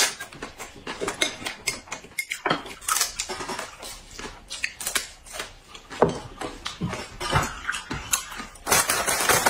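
Eating at a table: irregular clicks of chopsticks against bowls and a plate, mixed with chewing and crunching of raw green onion.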